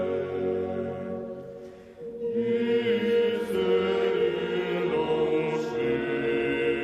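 A choir chanting in long held chords as background music; one phrase fades out and a new one begins about two seconds in.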